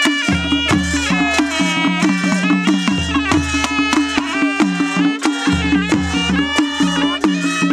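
Nepali panche baja band: a sahanai reed pipe plays a bending, ornamented melody over small stick-beaten kettle drums keeping a quick, steady beat, with deep drum booms coming and going.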